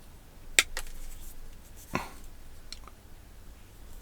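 Wire cutters snipping the ends of thin hookup wires: a sharp snip about half a second in and another about two seconds in, with a few fainter clicks after.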